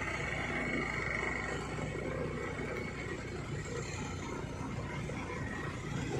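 Motorcycle engine running steadily as the bike is ridden along a road, mixed with road and wind noise.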